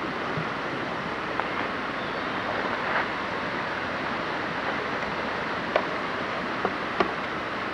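Mountain creek rushing over rocks, a steady white-water rush, with a few light clicks in the second half.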